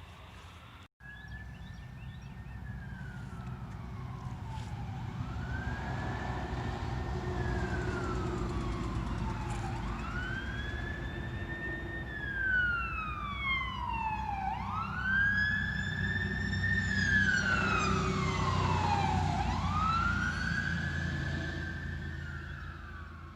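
Fire apparatus siren on a wail, sweeping up quickly and sliding slowly back down about every five seconds, over a steady low engine rumble. It grows louder through the middle and fades near the end.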